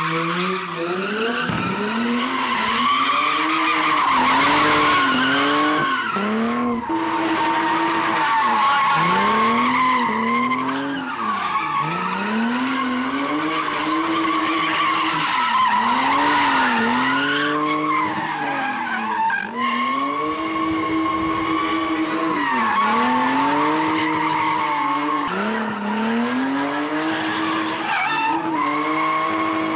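A car drifting with its tyres screeching throughout, while the engine revs rise and fall again and again, roughly every two seconds.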